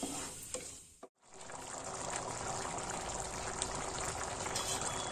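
Chana dal and jaggery syrup bubbling and sizzling steadily as it boils in a pan, thickening as it cooks down. A wooden spatula stirs it briefly at first, and the sound breaks off for a moment about a second in.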